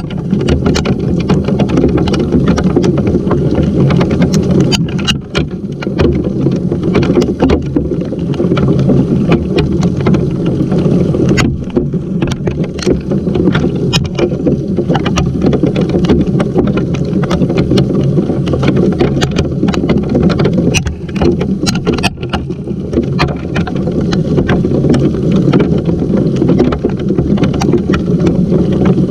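Heavy rain mixed with small hail pelting a camera's housing and a wooden deck: a dense, steady low rumble with many scattered sharp ticks of individual drops and stones striking.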